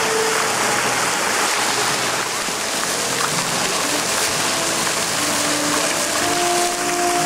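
Many fountain water jets spraying and splashing into a shallow pool, a steady rushing hiss of falling water.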